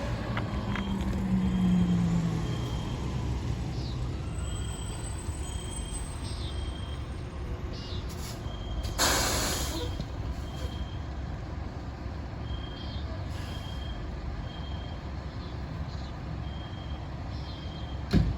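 Fire trucks running at idle, with a truck's reversing alarm giving evenly spaced high beeps and an air brake releasing in a loud hiss about nine seconds in. A low steady tone sounds in the first couple of seconds, and a sharp knock comes near the end.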